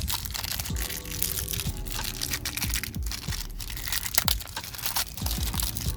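Handling noise of car parts: crinkling, rustling and small clicks as a belt pulley and its bearing are turned over in the hands, with faint music underneath.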